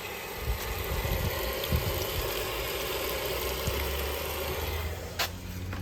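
Homemaker 7 kg top-load agitator washing machine filling: water rushing steadily into the tub with a low hum underneath, a few low thuds, and a sharp click near the end.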